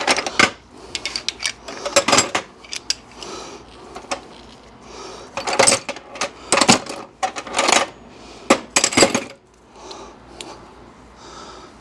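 Metal hand tools clinking and clanking in irregular clusters of sharp knocks, as wrenches and sockets are worked on tight bellhousing bolts. The knocking thins out near the end.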